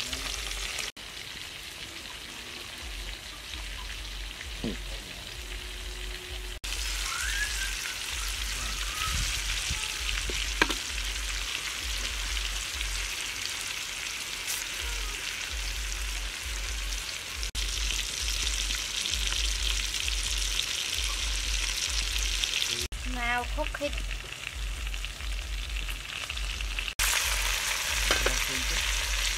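Oil sizzling steadily as stuffed tomatoes fry in a wok, with a metal spatula stirring and scraping them at times. The level jumps abruptly a few times.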